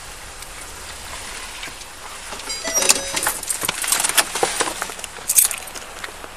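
Keys and duty-belt gear on a police officer jangling and clicking as he climbs out of a patrol car and moves about. It is quiet and steady at first, and the rattling starts about two and a half seconds in.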